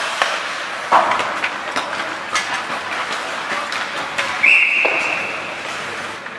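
Ice hockey game sounds: sticks and puck clacking and knocking on the ice and boards, with a referee's whistle blown once for about a second, about four and a half seconds in.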